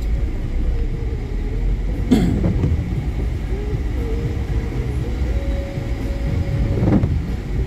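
Road vehicle driving along a road: a steady low rumble of engine and tyre noise, with a sharp knock about two seconds in and a smaller one near the end.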